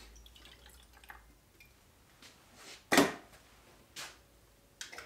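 A drink poured from a can into an enamel mug, a faint trickle, followed by a solid knock about three seconds in and two lighter knocks after it.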